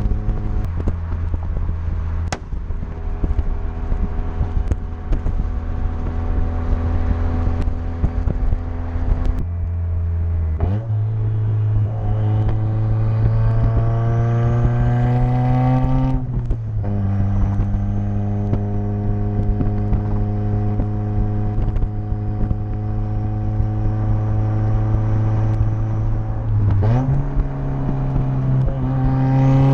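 Turbocharged 2.3-litre four-cylinder of a Mazdaspeed3 with a big BNR S4 turbo, external wastegate and muffler delete, driven. The engine runs steadily. About ten seconds in, the revs climb for several seconds under a rising turbo whistle, then drop suddenly. It runs steadily again, and the revs climb once more near the end.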